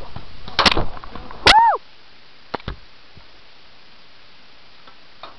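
Rustling movement, then a sharp crack about a second and a half in, together with a short shouted call that rises and falls in pitch. After that it goes quiet, with a few faint clicks.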